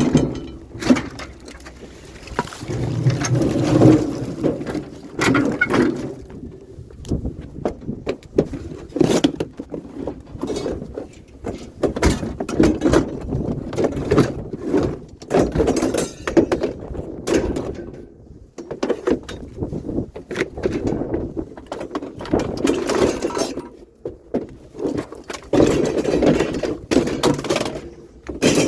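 Curbside scrap and junk being handled and loaded: repeated clanks, knocks and clattering with rustling in between.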